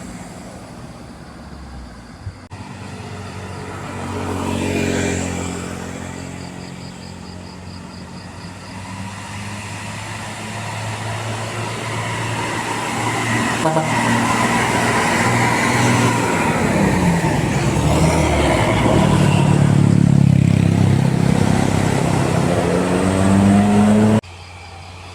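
Traffic on an uphill road. A vehicle passes about five seconds in, then a bus approaches, its engine growing louder and rising in pitch as it pulls up the incline. It is loudest near the end, then cuts off suddenly.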